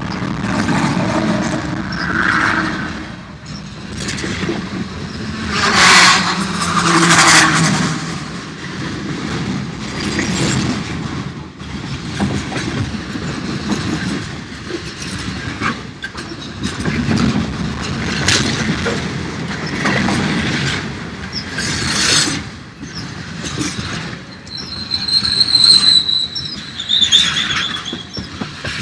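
Train passing, its wheels running on the rails, with a high wheel squeal near the end.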